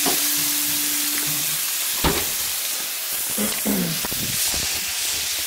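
Beef steaks sizzling as they fry in a nonstick skillet, a steady hiss, with a sharp knock about two seconds in.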